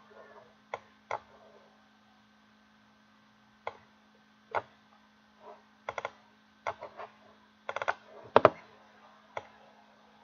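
Scattered clicks of a computer mouse and keyboard, some single and some in quick runs of two to four, over a faint steady electrical hum.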